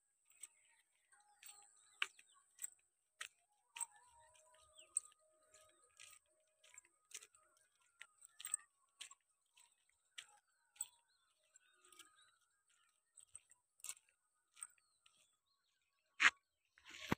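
Faint dawn chorus of small birds: many short, sharp chirps and a few brief whistled notes, over a steady thin high-pitched tone. One louder sharp chirp or click comes near the end.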